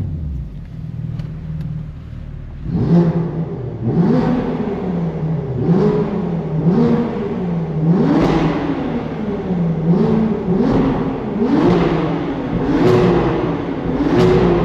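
BMW M2 G87's twin-turbo inline-six through an Akrapovic exhaust: revs falling away and quieter at first, then from about three seconds in the revs climb and drop again and again, roughly once a second, about ten times.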